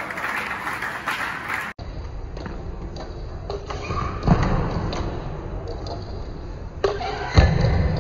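Background music that cuts off abruptly at an edit, followed by the live sound of a table tennis rally: sharp clicks of the ball off paddles and table at irregular spacing, with two low thuds of a player's feet on the floor.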